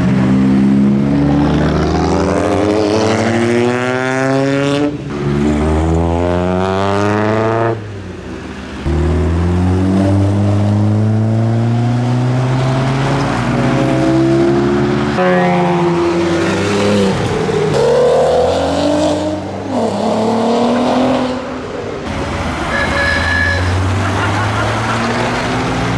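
Modified cars accelerating away one after another, engines revving hard and climbing quickly in pitch before each sound breaks off abruptly. Tyres hiss on the wet road underneath.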